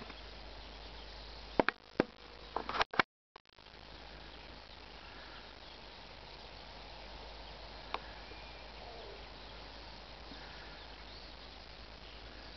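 Outdoor rural ambience: a steady hiss with faint scattered chirps. Several sharp knocks in the first three seconds, then the sound cuts out for a moment before the hiss returns.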